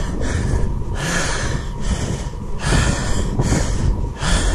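A man breathing hard and loudly while walking up steep stone steps, gasping in and out about every second and a half. He is out of breath from the exertion of a steep 300-metre climb.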